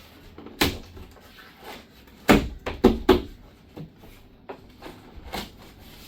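Cardboard wardrobe panels being pressed and tapped into their slots by hand: a series of separate knocks and thumps, the loudest a cluster of three about two and a half seconds in.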